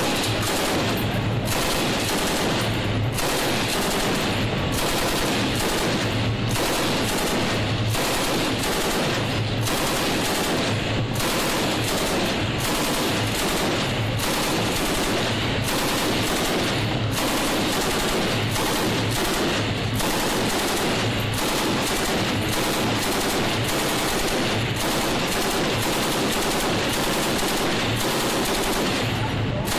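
M240B 7.62 mm machine guns firing in rapid bursts, one after another with hardly a pause.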